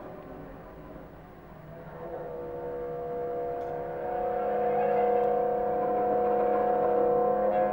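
Bowed Persian string instruments, kamancheh and bass gheychak, holding long sustained notes together in a droning chord, which swells louder from about two seconds in and then holds steady.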